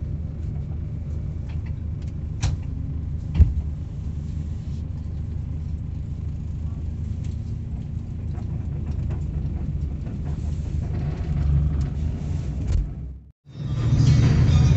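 Steady low rumble of an intercity bus heard from inside the passenger cabin, with a sharp knock about three and a half seconds in. Near the end the sound drops out for a moment and comes back louder.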